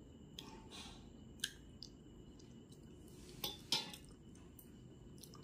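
A person eating by hand close to the microphone: soft wet mouth and chewing sounds with scattered small clicks, and two sharper smacks about three and a half seconds in as a mouthful goes into the mouth.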